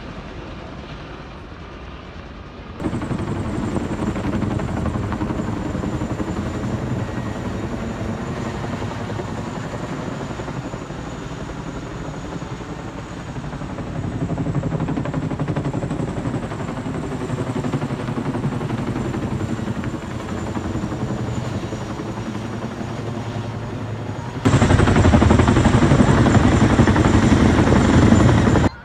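Military helicopters flying over: steady rotor and turbine noise, which jumps sharply louder about 3 s in and again near the end. From the middle on, the helicopter is a tandem-rotor CH-47 Chinook.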